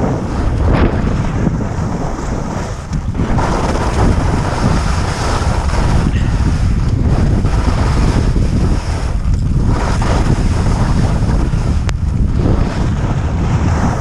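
Strong wind buffeting the microphone during a ski descent: a loud, constant rush of noise that swells and eases in gusts, dropping briefly a few times.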